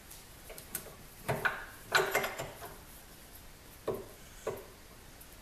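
Steel pipe and plate being set and clamped in a bench vise for welding: a string of short knocks and clanks, clustered about a second and two seconds in, then two single knocks near the end.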